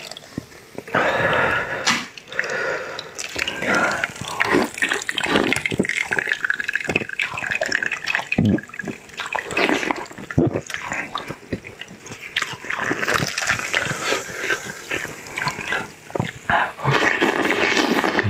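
Close-miked eating sounds: wet chewing, smacking and slurping of a soft, moist food, with many small lip and tongue clicks in an irregular run.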